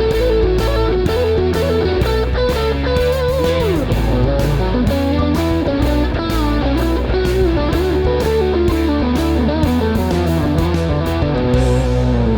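Overdriven electric guitar playing a hard-rock part over bass and drums with a steady beat, including a bent note about four seconds in.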